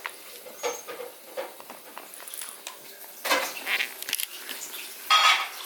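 Beagle puppies scuffling and chewing on toys in their pen: scattered light clicks and rustles, a louder scuffle about three seconds in, and a louder burst near the end.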